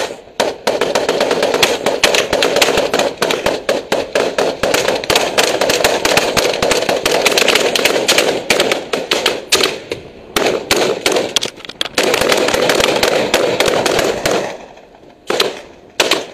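Heavy, rapid gunfire from armed guards' firearms on a ship's deck, starting all at once with shots coming thick and fast. There are short breaks, then the firing stops for about a second and a few more shots follow near the end.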